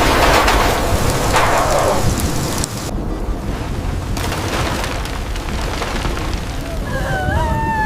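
Heavy rain with a rumble of thunder in the first two seconds or so, then steady rain.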